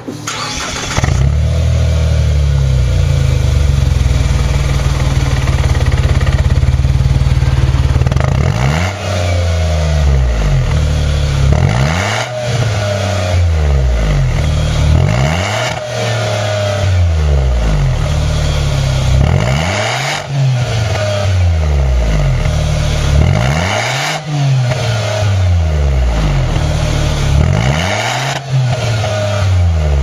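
Nissan Note with an Impul aftermarket exhaust, heard at the tailpipe. The engine starts up about a second in and idles steadily. From about eight seconds on it is blipped about six times, every three to four seconds, each rev rising and falling back to idle.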